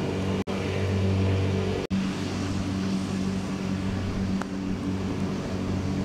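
A steady, low engine hum runs throughout. It cuts out abruptly twice, very briefly, in the first two seconds.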